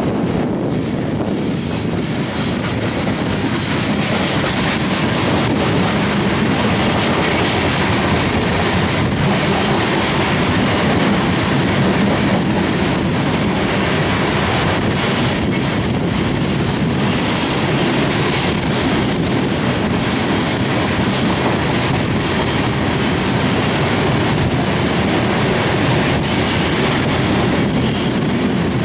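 Loaded coal hopper cars rolling past on curved track: a steady rumble of steel wheels on rail with clickety-clack, and brief faint high wheel squeals a couple of times.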